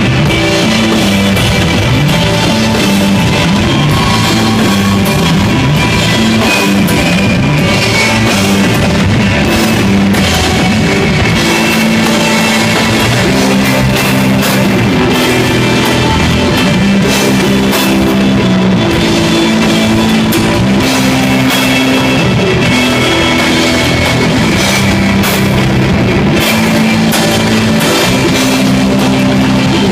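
Live instrumental desert rock, played loud by a trio of electric guitar, bass guitar and drum kit, with no singing. Bass notes are held and shift every second or so under a sustained guitar and steady cymbals.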